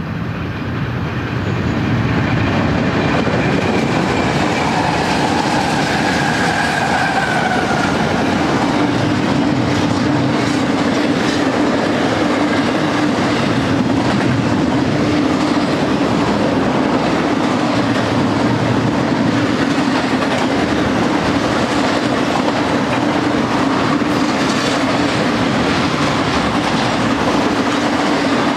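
BNSF intermodal freight train passing close by, its wheels rolling steadily on the rails as double-stack container cars and then trailer-carrying flatcars go by. The sound swells over the first couple of seconds as the lead diesel locomotives pass.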